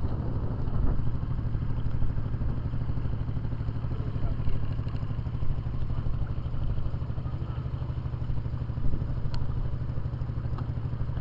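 A small engine running steadily at constant speed, with a deep, even drone. A couple of light clicks come near the end.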